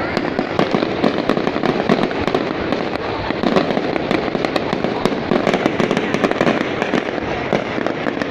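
Fireworks going off without pause: a dense crackle of many rapid, overlapping pops and bangs.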